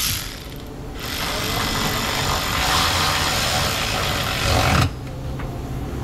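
A power tool runs for about four seconds, driving down a bolt on the hood latch, then stops abruptly.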